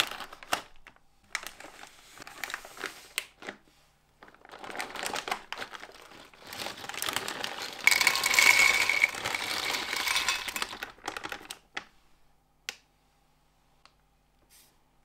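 Plastic snack bag crinkling as it is cut open and handled. About eight seconds in comes a louder, dense rattle of dry puffed barrel-shaped snacks pouring out of the bag into a bowl, lasting about three seconds, followed by a few faint clicks.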